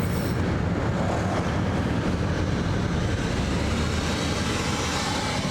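Steady rumble of a moving car heard from inside: engine and tyre noise while driving.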